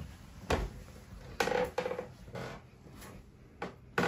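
Irregular light knocks and clatter, about six in all, over a faint background hiss.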